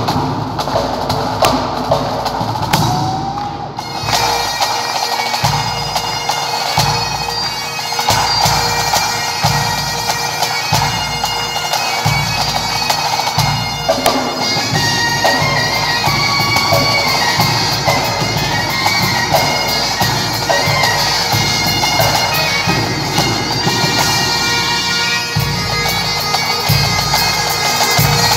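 Breton bagad playing: snare drums alone at first, then about four seconds in the bagpipes and bombardes come in loud over the drums and carry the tune.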